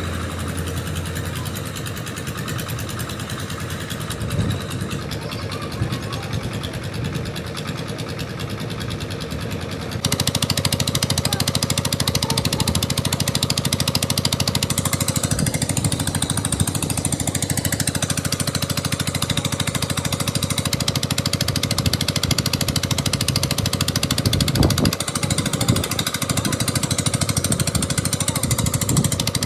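Construction machinery running steadily with a fast rattling beat, getting louder about ten seconds in.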